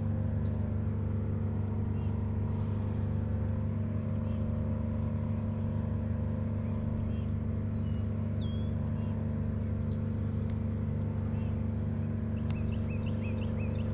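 A steady low drone that does not change, with birds calling now and then in short, falling, whistled chirps.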